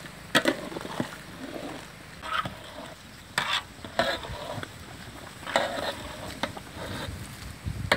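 A ladle stirring thick gravy in a large aluminium pot, scraping and knocking against the pot in short, irregular strokes over a steady bubbling hiss.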